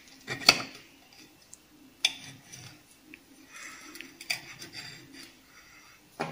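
Serrated knife cutting through a crisp-crusted handvo and scraping and clinking against a plate: a sharp clink about half a second in, then scattered scrapes and clicks.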